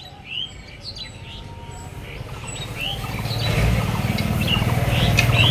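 Small birds chirping with short calls scattered throughout, while a low rumble swells in from about halfway through and becomes the loudest sound.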